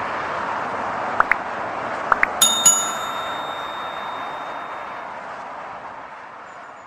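Subscribe-button animation sound effect: two pairs of quick rising clicks, then a bright bell ding that rings out. Under it is a steady rushing noise that slowly fades away.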